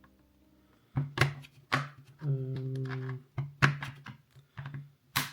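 Several sharp plastic clicks and snaps, the loudest near the end, as a pry pick is worked around the seam of an e-reader's back cover and its locking tabs release.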